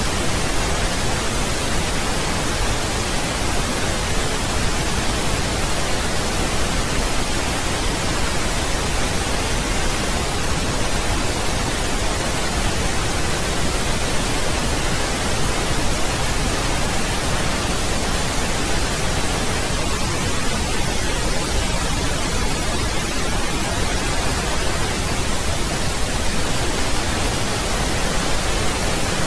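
Pink noise: a steady, even hiss spread over all pitches, unchanging throughout.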